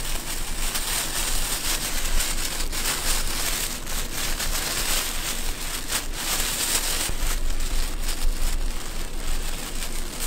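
Plastic bags rustling and crackling while powder is shaken out of them into a steel mixing bowl, a dense hissy crackle with many small sharp clicks.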